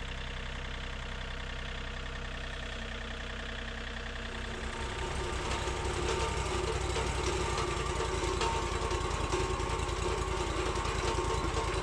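Portable band sawmill's engine running steadily, then speeding up and getting louder about five seconds in and holding at the higher speed.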